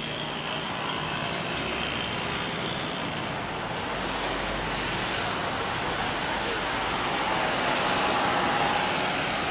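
Jet engines of a Boeing 737 airliner on final approach with its landing gear down: a steady rushing roar with a faint whine, growing louder as the plane nears and at its loudest about eight seconds in.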